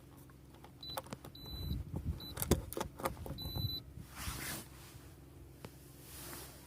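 Plastic clicks and knocks of a 12-volt plug being pushed and worked in its socket, with two short high beeps among them; the plug is making poor contact.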